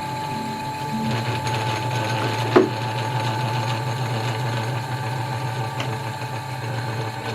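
Myford ML7 lathe running, with a steady motor hum and a chatter of gears and belt. One sharp tick about two and a half seconds in.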